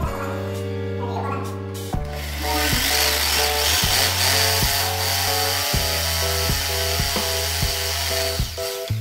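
Corded rotary hammer drill boring into a wall, starting about two seconds in and stopping just before the end, over background music with plucked notes.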